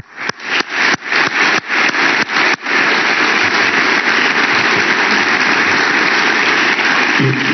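An audience applauding: a few separate hand claps at first, filling out about two and a half seconds in into dense, steady applause.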